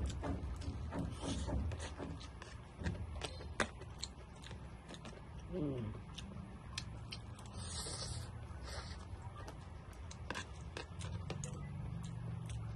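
Mouth noises of someone eating Korean spicy instant noodles: chewing and slurping, with many small clicks of chopsticks against the bowl. There are two short hissing slurps around eight and nine seconds in, and a brief falling vocal sound just before the middle.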